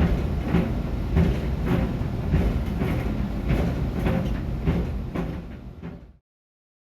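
A pair of Puma sneakers thumping rhythmically inside a running clothes dryer, a little under two thumps a second, over the steady rumble of the tumbling drum. The sound fades out and stops about six seconds in.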